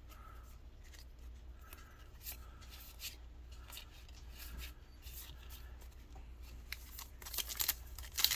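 Faint rustling and small clicks of trading cards and foil booster-pack wrappers being handled, with louder crinkling near the end.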